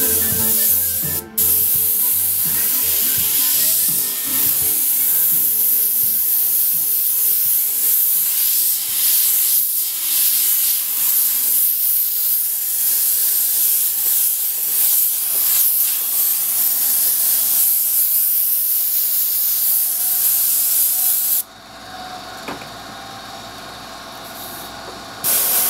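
Siphon-feed airbrush spraying paint in a steady hiss of air, with a brief break just after a second in. The hiss stops about 21 s in, and a short burst comes again near the end.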